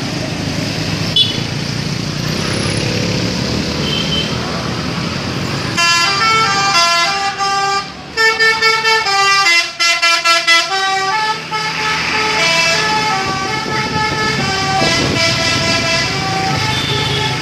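Indonesian telolet bus horns playing quick melodies of short stepped notes, one tune overlapping another, over bus engine and road noise. The horns start about six seconds in, with a fast run of repeated notes near the middle.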